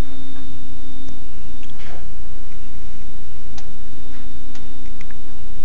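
A steady hum with a thin high-pitched whine over a low rumble, and a few faint scattered clicks.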